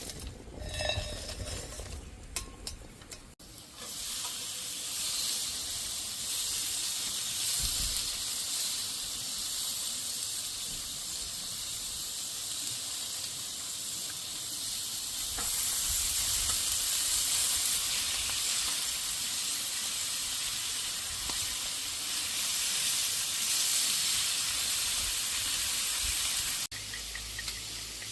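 A steady high hiss that starts abruptly a few seconds in and cuts off abruptly near the end.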